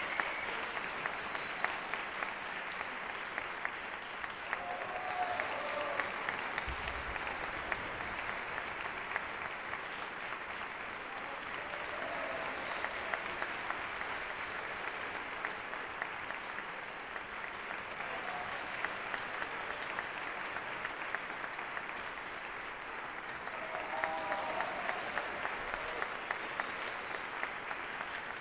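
Concert hall audience applauding steadily after an orchestral performance, with a few brief calls from the crowd rising above the clapping.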